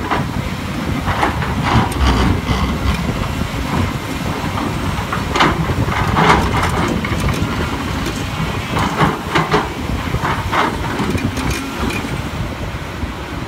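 Volvo EC350DL crawler excavator's diesel engine running steadily under load while the bucket digs into dry earth. Repeated short scrapes and clanks come from the bucket and soil, several in clusters.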